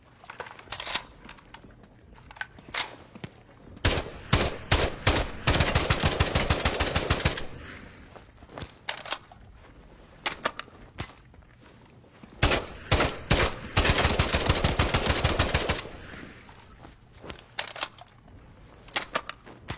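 JM-3 bullpup rifle firing, twice over: a few single shots, then a sustained fully automatic burst of about two seconds. Small clicks sound in the gaps between the volleys.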